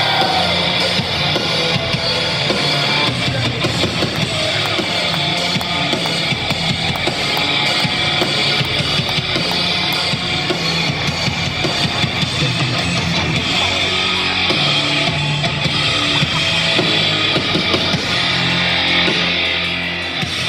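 Loud rock music with electric guitar and drums played over an arena's sound system.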